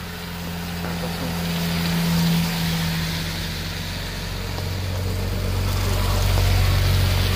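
Motor vehicles passing one after another on a wet road: one engine hum rises to a peak about two seconds in and fades, then a police motorcycle's engine swells close by near the end. Tyres hiss on the wet tarmac throughout.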